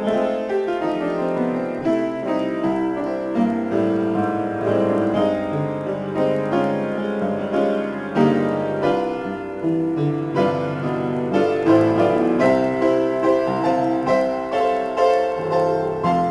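Piano improvisation: chords and running notes played without a break, with frequent fresh note attacks.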